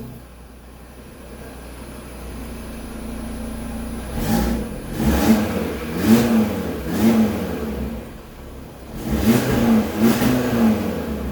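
Audi RS3 8V's turbocharged 2.5-litre five-cylinder engine idling, then revved in quick throttle blips through aftermarket Unitronic mid-pipes: a run of four or so blips starting about four seconds in, and two more near the end.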